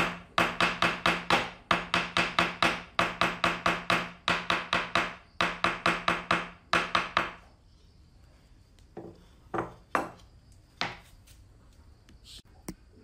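Rapid hammer taps on a hardwood board, about four or five sharp knocks a second in runs, for roughly the first seven and a half seconds. The hammer is working the board into a dovetail housing. A few single wooden knocks come near the end.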